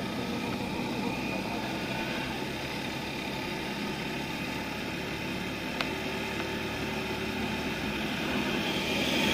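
Motorcycle riding on the road: steady engine and wind noise, with one sharp click a little before six seconds in.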